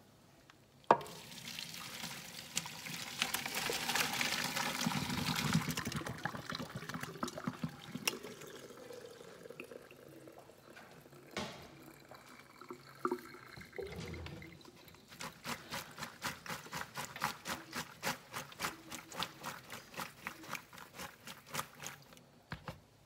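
Boiled rigatoni and its hot water poured from a pot into a plastic colander in a sink: a sharp knock as the pouring starts, then a rush of draining water that tapers off, with a few knocks. In the second half the colander is shaken, a rapid even rattle of about five beats a second.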